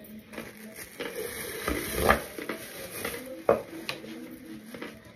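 Close-miked mouth sounds of chewing a mouthful of cornstarch: a steady run of small clicks and squishes, with louder smacks about two seconds in and again about three and a half seconds in.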